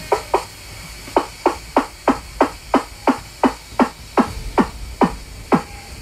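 Weddell seal calling underwater: a rapid series of short chirps, each falling steeply in pitch, about three a second, with the later sweeps reaching lower.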